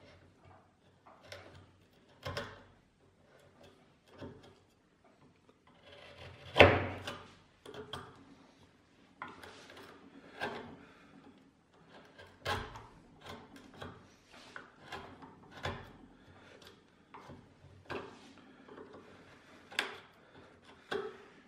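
A Two Cherry bench chisel, pushed by hand, paring the maple of a violin scroll and pegbox. It makes a run of short, irregular slicing and scraping strokes with small chips coming away, and one stroke about a third of the way through is much louder than the rest.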